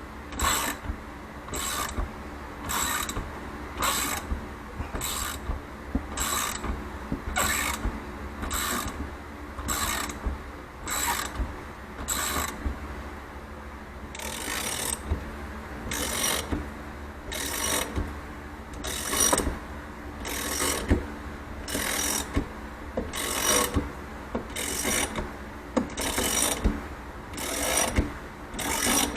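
Ratchet wrench clicking in steady, repeated strokes, a little more than one a second, as it backs off the threaded rods of a coil spring compressor to release a coil-over shock's spring.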